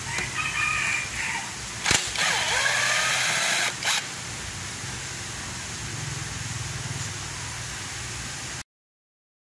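A power drill turns a flywheel puller bolt on a Stihl 070 chainsaw to pull the flywheel. It starts with a sharp knock, runs for about two seconds with a whine rising in pitch, and stops with another knock.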